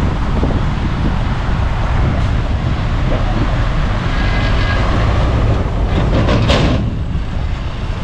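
Heavy diesel earthmoving machinery running with a steady low rumble. Faint squealing comes about halfway through, and a short hissing burst with clanks comes about six and a half seconds in.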